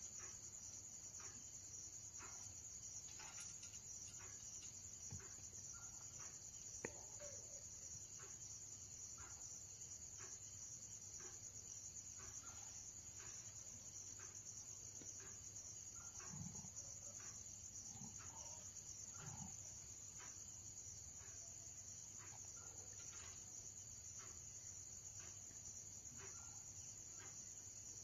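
Faint steady high-pitched chirring of crickets at night, with a soft click about a quarter of the way in.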